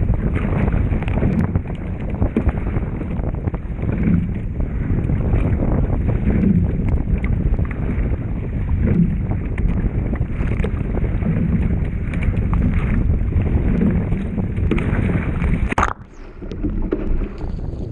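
Wind buffeting the microphone, over choppy whitecap waves slapping and splashing against the hull and bow deck of a Peinert X25 racing shell, coming in uneven surges every second or two. The noise briefly drops near the end.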